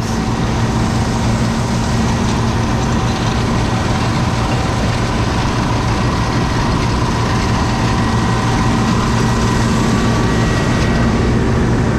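John Deere 6620 combine harvester running steadily while cutting soybeans, its engine and threshing machinery making a constant drone with a steady low hum.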